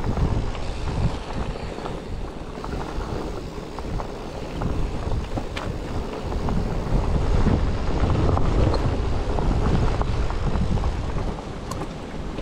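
Wind buffeting the microphone of a mountain bike being ridden on a trail, with scattered small knocks and rattles from the bike. The rumble grows louder a little past halfway, then eases near the end.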